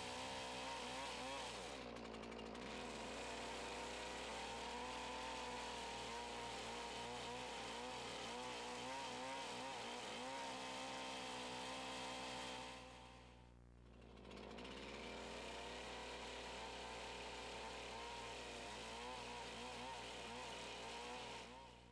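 Chainsaw cutting into a squared log, its engine note wavering as it works through the wood. The sound drops away briefly a little past halfway, then the saw picks up and cuts on.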